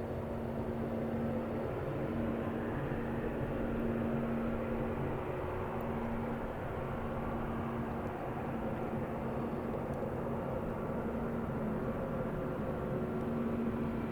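Airbus A320neo's jet engines running steadily, a continuous rushing noise with a low steady hum of several tones.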